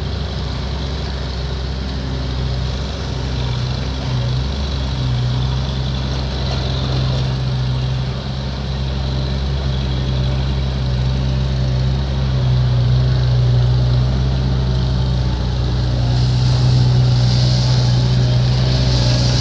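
Caterpillar skid steer loader's diesel engine running steadily, a little louder from about halfway, with a rise in high hiss near the end.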